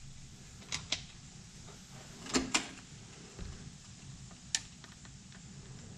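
A few light, sharp clicks and knocks, one about a second in, a close pair around two and a half seconds in and another near four and a half seconds, over a low steady hum.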